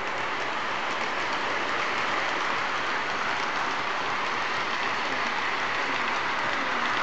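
O gauge model train's hopper cars rolling on three-rail track: a steady whirring rush of wheels on rails that grows a little louder as the train passes close.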